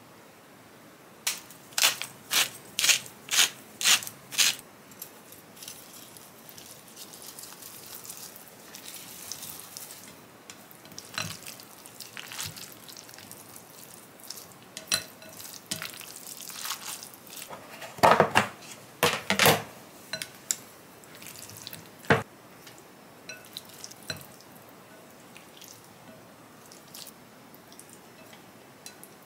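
Kitchen work: a quick run of about seven sharp knocks a couple of seconds in, a short hiss, then a loud clatter of dishes and utensils about two-thirds through, with lighter clinks and taps between.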